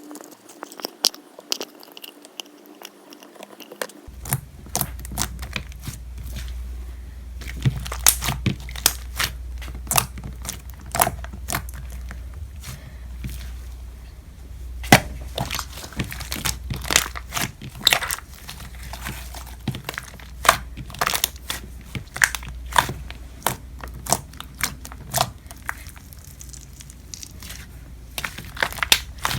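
Slime being squished and pressed by hand, giving off many irregular sharp crackling pops and clicks, thicker after the first few seconds.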